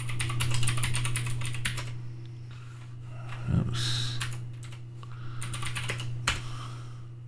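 Typing on a computer keyboard: quick runs of keystrokes with short pauses between them, over a steady low hum.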